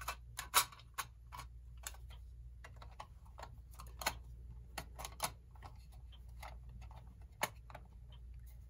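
Irregular light clicks and taps of a clock's glass and metal frame being handled and fitted over the dial, over a steady low hum.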